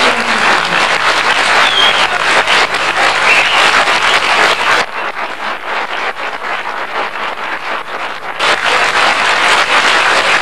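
Audience applauding, a dense patter of many hands clapping. A little under halfway through it turns quieter and duller for about three and a half seconds, then comes back full.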